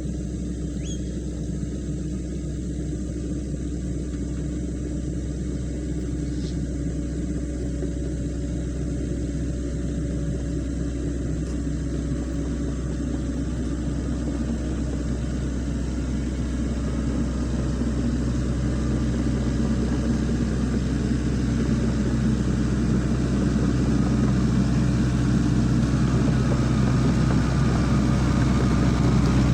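Diesel engine of a Sany SY55C mini excavator running steadily, growing gradually louder.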